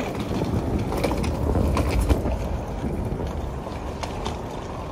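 Steady low rumble with wind buffeting the microphone and a few light clicks.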